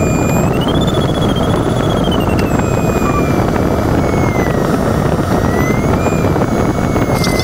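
Steady rush of air over the canopy of an engineless LS4B glider in flight, heard from inside the cockpit. Over it a thin electronic tone from the audio variometer slides slowly up and down in pitch, its pitch following the glider's rate of climb or sink.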